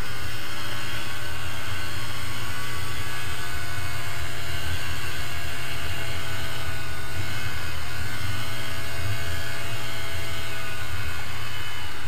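Snowmobile engine running steadily under way, carrying several riders, with an even engine note and a constant hiss of travel noise.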